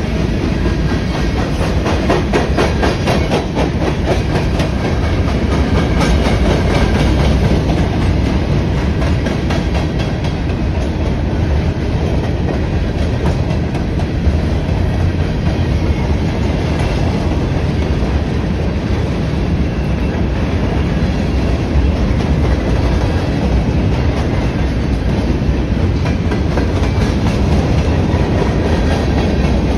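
Freight train cars rolling past close by: a steady, loud rumble of steel wheels on the rails, with wheel clacks over the rail joints.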